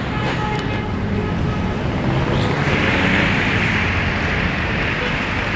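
Busy city road traffic heard from above: a steady mix of vehicle engines and tyre noise, with a louder hiss setting in about two and a half seconds in.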